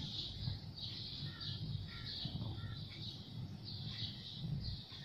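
Silicone spatula stirring jelly mix in a pan of boiling water, a soft swish with each stroke over a low rumble, with a few faint bird chirps in the background.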